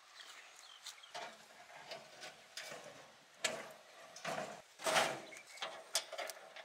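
Wire-mesh grill grate being set down and slid into place on a barrel grill, its metal frame scraping and clinking against the steel drum in a series of light knocks, the loudest about three and a half and five seconds in.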